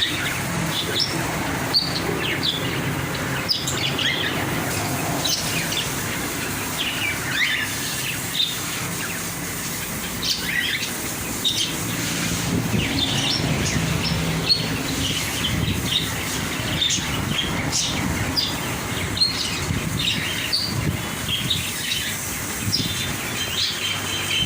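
Many caged birds chirping and calling at once, a constant scatter of short high calls overlapping, over a steady low hum.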